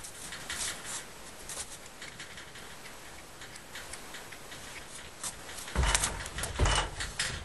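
A horse's hooves thumping on a stock trailer's floor as a colt steps up into the trailer, two heavy thumps about six and seven seconds in. Before that, scattered faint clicks.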